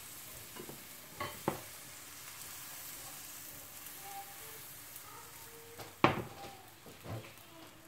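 Thin pancake batter sizzling in butter in a non-stick frying pan, with a few light clicks as batter is ladled in and the pan is tilted. About six seconds in, the pan is set back down on the glass-ceramic hob with a sharp knock, the loudest sound, followed by a smaller knock.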